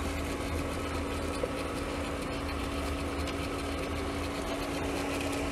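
12-volt car fan motor used as a blower on a miniature steam locomotive's smokestack, running with a steady hum, drawing draft through the fire tubes while the fire is being raised.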